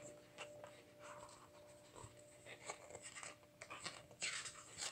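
Pages of a large glossy book being lifted and turned: soft paper rustles and slides, busier near the end. A faint lingering grandfather clock chime tone dies away in the first few seconds.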